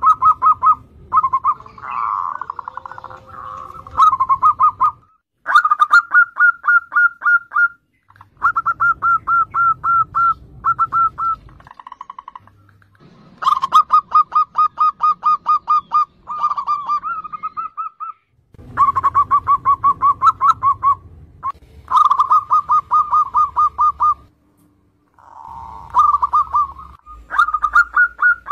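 Zebra doves (perkutut) singing: repeated phrases of rapid staccato cooing notes, each phrase lasting one to three seconds with short pauses between. The background hum changes abruptly between phrases, as several recordings are cut together.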